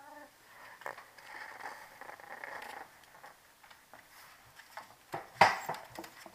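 Young puppies scuffling and play-fighting in a wire playpen, with rustling and small knocks, and one loud sharp knock about five seconds in.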